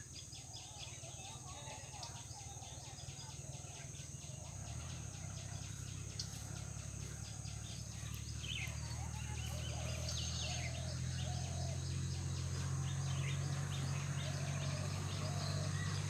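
Small birds chirping in bamboo over a steady, rapidly pulsing insect buzz, with a low hum that grows louder about a third of the way in.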